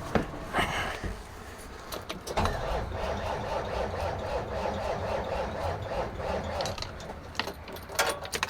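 Diesel engine of a 1983 Kenworth K100 cabover being cranked by its starter on a cold, hard start: a couple of clicks, then from about two seconds in a steady starter whine that wavers over a low rumble.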